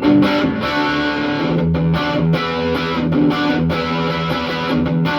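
Electric guitar, a Gibson SG, played through a Marshall SC20C tube combo (a 20-watt JCM800 reissue) with an overdrive/boost pedal: driven rhythm chords with short choppy stops. The sound is squashed by the phone's heavy compression.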